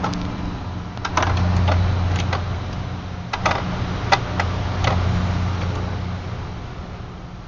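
Strange noise from a car with the ignition power on and the engine off: a low electrical hum that swells about a second in and slowly dies away, with irregular sharp clicks over it.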